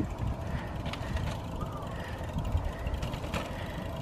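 Bicycle coasting down concrete steps: the freewheel hub ticks steadily, with a few sharp knocks as the wheels drop over the step edges.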